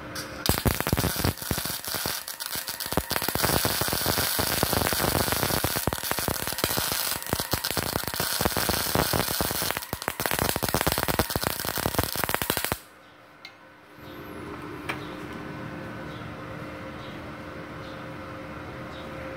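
MIG welding arc from a 450-watt gasless MIG machine running on CO2, crackling steadily for about twelve seconds at a freshly raised amperage, then cutting off suddenly. A steady hum is left afterward.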